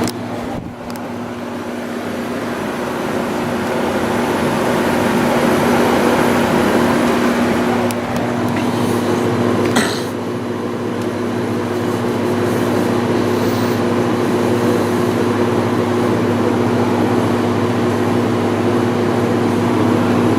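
Haier 5000 BTU window air conditioner running steadily on its rotary compressor and fan: an even hum with two held tones over a fan rush. There is a short click a little before halfway, and the unit cuts off abruptly at the end.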